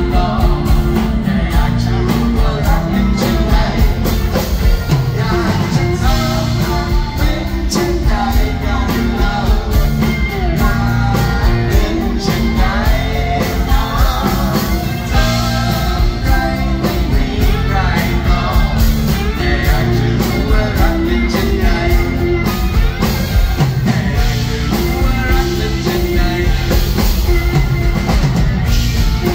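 Live band playing a rock song, with acoustic guitar and drums and a man singing.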